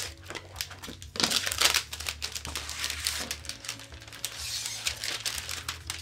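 A thin clear plastic sheet crinkling and rustling as it is handled and moved around, in irregular crackles, loudest between about one and two seconds in.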